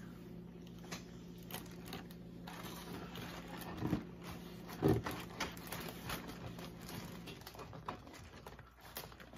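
Quiet eating and handling sounds: scattered small clicks and rustles as chocolate-glazed donuts are bitten and the cardboard donut box is handled, with two louder knocks about four and five seconds in. A low steady hum runs under it and stops about seven seconds in.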